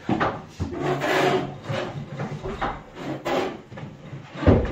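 Birch plywood wardrobe carcass scraping and rubbing as it is shuffled into place on its floor bearers, with a heavy wooden knock near the end.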